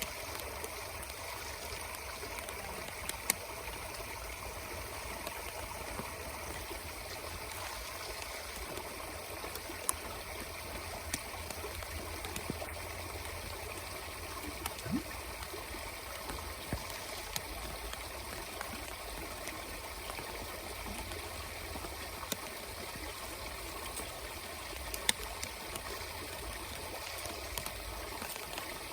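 Steady rushing of water with a few sharp clicks, the loudest about three seconds in, around ten seconds in and near the end.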